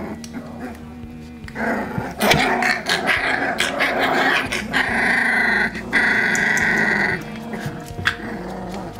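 A litter of three-week-old Rhodesian Ridgeback puppies play-fighting, with small growls and yips. It gets louder about two seconds in, and a long, high, steady squeal lasts about two seconds near the middle.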